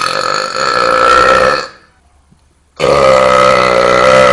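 Two long, loud belches from a man, each with a steady pitch. The first is already under way and ends after about a second and a half; the second starts about a second later and is still going at the end.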